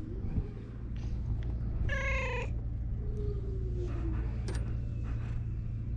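A tabby cat gives one short meow about two seconds in, then a fainter, lower call that falls in pitch, over a steady low rumble.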